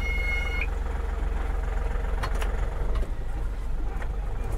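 Diesel engine of a small Ashok Leyland goods truck idling steadily with an even low throb. A thin high steady tone cuts off about half a second in.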